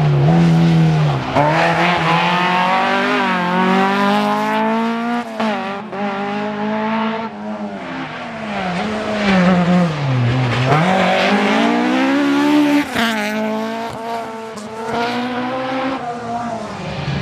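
Rally car engine running hard on a tarmac stage, its revs climbing and falling again and again as the driver shifts gear, brakes and accelerates. There are deep drops in pitch about a second in and around ten seconds in.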